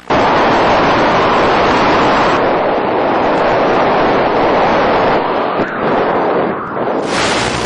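Air rushing over a radio-controlled FPV plane in flight, picked up by its onboard camera as a loud, steady roar of wind noise with the motor and propeller underneath. The sound changes abruptly about two seconds in and again about seven seconds in.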